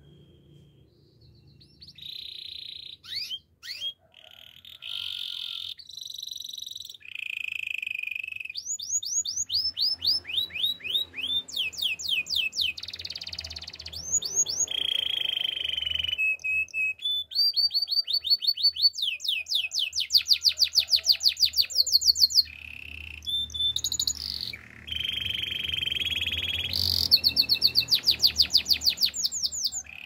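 White canary singing a long, continuous song that starts about two seconds in. Its phrases alternate fast trills of quickly repeated sweeping notes with held rolling notes.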